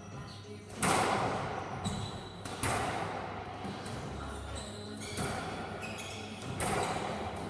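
Squash rally: the ball cracks off rackets and the court walls about five times, each hit followed by the echo of the enclosed court. The loudest hit comes about a second in.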